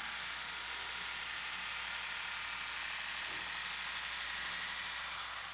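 Electric split-end hair trimmer (corte bordado machine) running as it is drawn along a lock of hair: a steady whirring hiss that cuts off sharply at the end.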